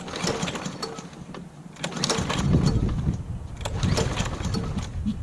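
Recoil starter of a Lawn-Boy 10606 mower's Kohler engine pulled several times in a row, the engine cranking but not catching. It fails to start because the carburetor choke is stuck open.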